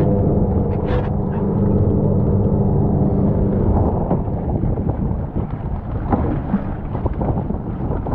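Fishing boat's engine running steadily with a low hum, which eases about halfway through into a rougher low rumble.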